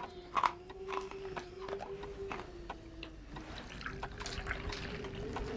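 Hot drink poured from a vacuum flask into a cup, a steady trickle whose pitch slowly rises as the cup fills, with a few light clicks.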